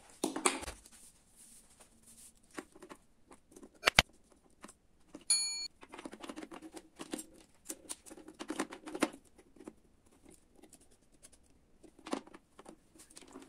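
Small screwdriver and wires handled against a DC-DC boost converter module's screw terminal block: scattered small clicks, taps and rustles as wire ends are fastened in. There is a sharp click about four seconds in and a short high tone a moment later.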